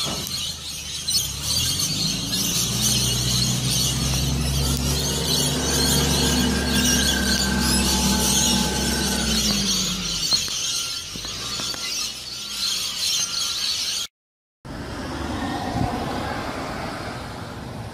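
A flock of rainbow lorikeets screeching and chattering, over an engine running low until about ten seconds in. After a brief silent gap near the end, steady street noise.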